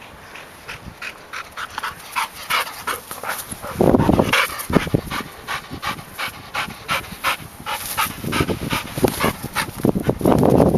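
Golden retriever panting hard and fast close to the microphone, about four breaths a second. Louder rustling bursts come about four seconds in and again near the end.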